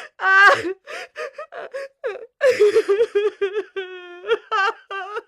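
A woman's voice performing crying as a vocal sound effect: a string of short, wavering sobbing whimpers and gasping in-breaths, with a brief held wail about four seconds in.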